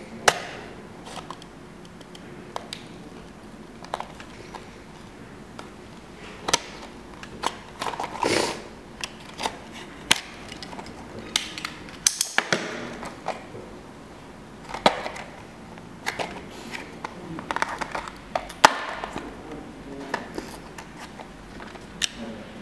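Handling of a small cardboard box and its plastic packaging for a model railway container on a wooden table: a string of sharp clicks and taps, with a few short scraping strokes as a utility knife is worked at the box.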